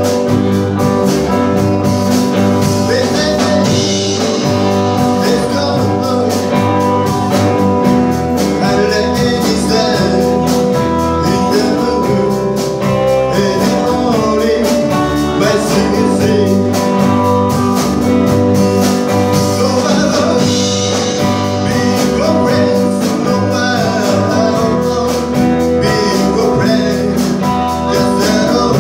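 A live band playing a song: a man singing lead over electric guitar, upright double bass and drums.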